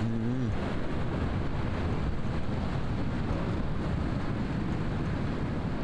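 Wind buffeting the microphone over the steady wash of ocean surf on a beach.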